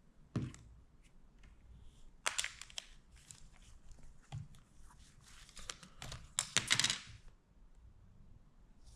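Hands handling a plastic phone case and its packaging: a soft thump near the start, then scattered clicks and crinkly rustling, loudest about six to seven seconds in.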